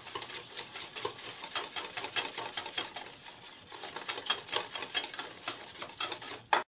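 Metal balloon whisk beating thick, cooled crème anglaise in a stainless steel saucepan, making rapid, rhythmic clicks against the pan. This is the custard being loosened smooth before whipped cream is folded in to make crème diplomate. It cuts off suddenly near the end.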